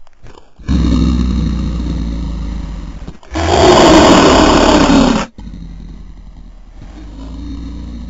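Designed kaiju monster roar made by layering lion, tiger and dinosaur roars. A long low roar fades out, then a louder, brighter roar of about two seconds cuts off suddenly, followed by a quieter, low rumbling call.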